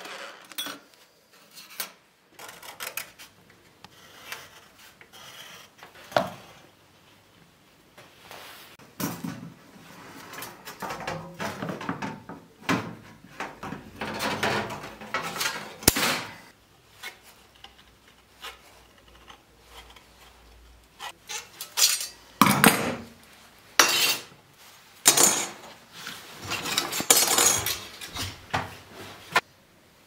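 Thin sheet metal being worked by hand: a file scraping along its cut edge, and the sheet clattering and knocking against the bench in irregular bursts.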